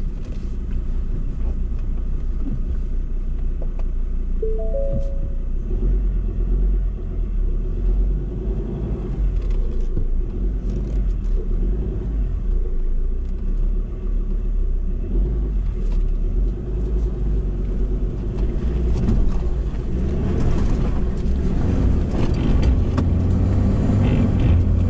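Ford Ranger four-wheel drive crawling over a rough dirt track, heard from inside the cabin: a steady low engine rumble with scattered knocks and rattles from the body and suspension. Three brief short tones sound about four and a half seconds in.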